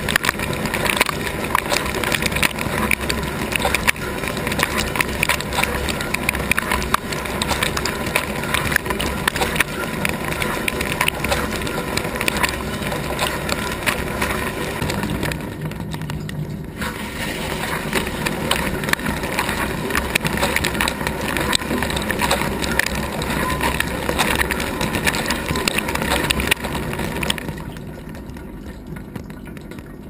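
Water jets from a Gorenje GS 53314 W dishwasher's spray arm spraying and splashing over the racks, dishes and tub walls in the wash cycle, heard from inside the tub. The spray eases off briefly about halfway through, then stops near the end, leaving only a quieter low sound.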